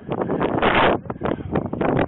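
Wind buffeting a body-worn camera's microphone in irregular gusts, with short knocks and rustles from the wearer's movement through the brush.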